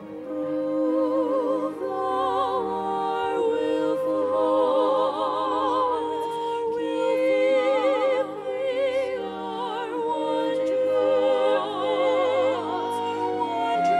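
Female vocal trio singing a slow song into microphones, several voices held together with wide vibrato on the long notes, over a steady sustained accompaniment.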